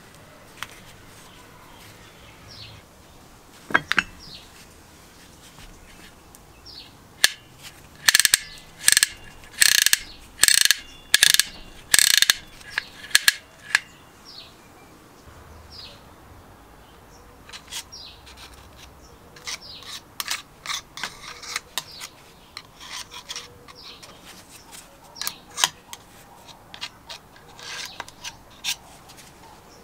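Ratchet wheel and spring-loaded pawl of a manual chain hoist's brake clicking as the mechanism is turned by hand. A run of loud metal clicks, about two a second, comes in the middle, followed by lighter, scattered clicks of the parts being handled.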